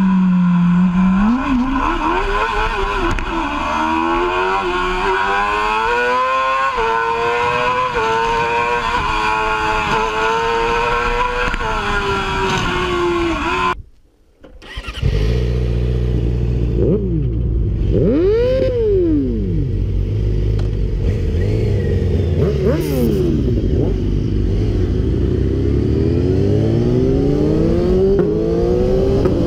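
Sportbike engine accelerating, its pitch climbing and then easing off. After a brief gap, a second sportbike ride: engines running under a heavy low rumble, with several short revs rising and falling in pitch.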